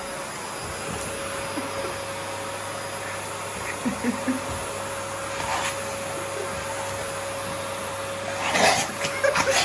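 Vacuum cleaner running steadily with a constant whine. A few short low sounds come about four seconds in, and a cluster of loud short knocks and scuffles comes near the end.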